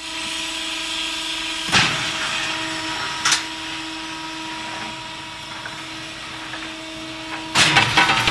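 Automatic wet cast concrete dosing machine running with a steady hum, broken by two sharp knocks about two and three seconds in; near the end a louder rattling clatter sets in.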